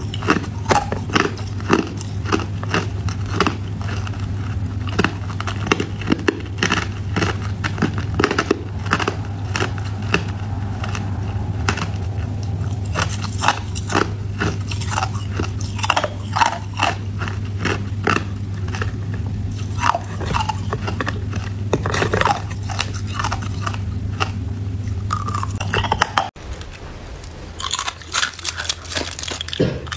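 Hard ice being bitten and chewed: a run of sharp, crisp crunches over a steady low hum. About 26 seconds in it cuts to the lighter crackle of thin, brittle sheet ice.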